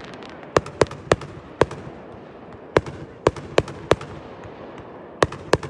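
Campfire crackling: about ten sharp, irregular pops and snaps over a steady hiss of burning wood.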